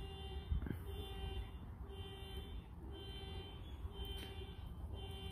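Car alarm going off, a pitched tone repeating about once a second over a steady low rumble, with a single knock about half a second in.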